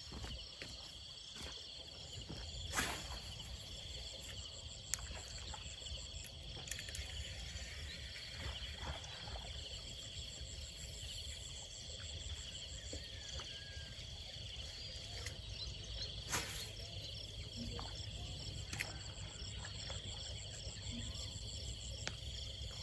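Insects chirping steadily over a low rumble, with a few brief knocks.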